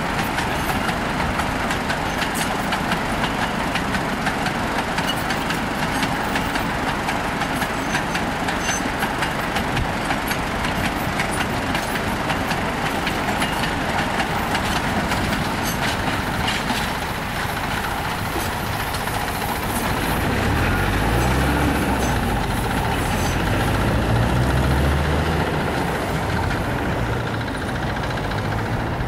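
Sugar-cane train's small bins rolling over a road level crossing: a steady rumble with rapid clicking of the wheels. In the second half a vehicle engine runs with its pitch rising and falling.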